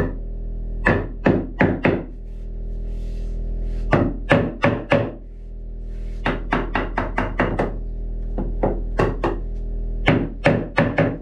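Hammer knocking a painted wooden batten into place, in runs of quick sharp blows: about four, then five, then a faster run of nine, then four and five. Background music with steady tones plays underneath.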